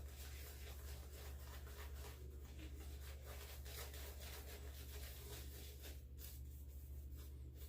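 Silvertip badger shaving brush swirling cream lather: soft, quick brushing strokes, faint, over a low steady hum.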